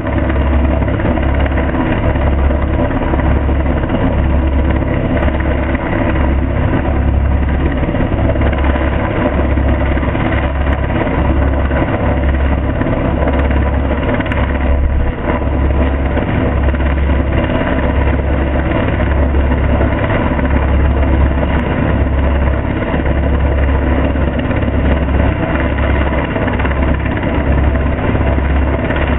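U.S. Coast Guard MH-60 Jayhawk helicopter hovering close overhead, its rotor and turbine noise loud and steady, with a deep throb that pulses about once a second.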